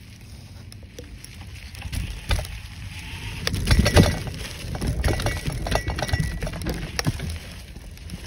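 Mountain bike rolling fast over a leaf-littered dirt trail, rattling and knocking over bumps and roots, with a low rumble. The clatter is loudest about four seconds in.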